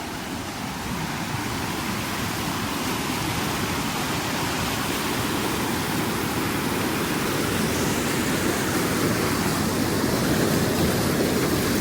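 Steady rush of a waterfall's falling water, growing gradually louder.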